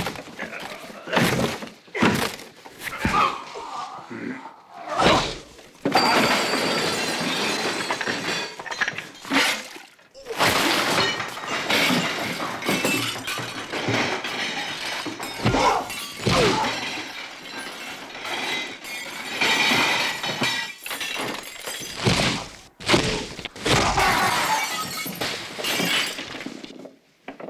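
Fistfight sound effects: a run of sharp punches and thuds, then long stretches of crashing and shattering glass broken by more blows.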